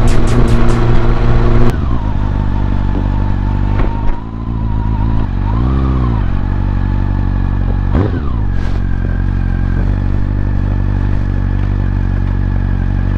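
Honda CB400 Super Four's inline-four through a Yoshimura slip-on muffler running steadily at low revs, with one short throttle blip, rising and falling in pitch, about six seconds in. A brief falling sweep is heard about eight seconds in.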